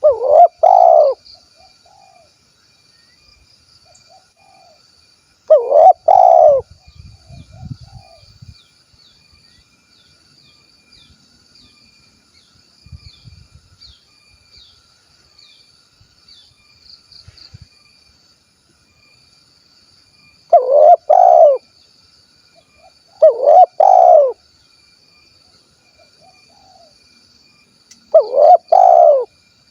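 Spotted dove (tekukur) cooing its 'kuk 1' song: five loud phrases of two or three quick coos, each trailed by a soft note, coming about a second in, near 6 seconds, and three more in the second half. A faint, steady high insect buzz runs behind them.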